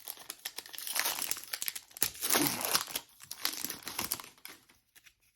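Plastic-foil trading card pack wrapper crinkling as it is handled and opened, a dense crackle that dies away near the end.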